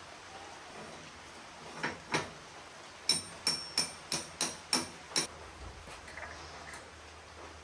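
Two soft knocks, then seven sharp, evenly spaced strikes at about three a second, like blows of a hammer.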